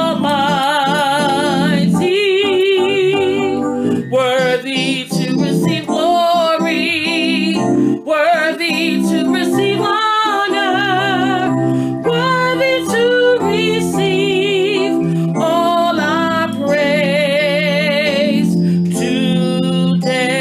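A woman singing solo in long held notes with a strong vibrato, over instrumental accompaniment.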